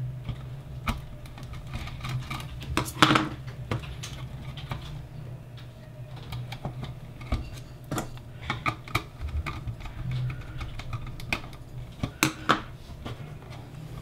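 Scattered small clicks and taps of wires and a screwdriver being worked into a plastic screw terminal block on a controller box, with a few louder knocks about 3, 8 and 12 seconds in.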